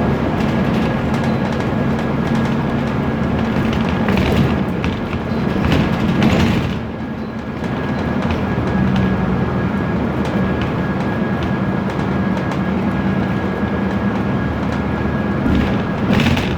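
Inside a BMC Procity city bus on the move: its Cummins ISB turbo diesel drones steadily under loose panels and window glass that rattle and clatter. The noise swells about four and six seconds in and again near the end.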